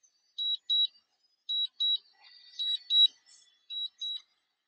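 Drone remote controller beeping a low-battery warning: high-pitched double beeps repeating about once a second while the drone returns home on its own.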